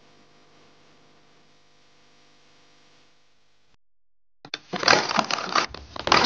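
A faint steady hum, then, after a brief gap, a loud run of clattering knocks and cracks as a coil of black plastic water pipe is handled.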